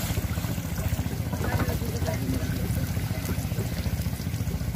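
An engine running steadily with a low, even hum and faint voices behind it.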